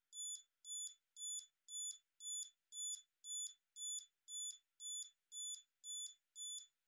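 Olympus OM-10 electronic self-timer beeping as it counts down, a short high-pitched beep about twice a second at an even pace.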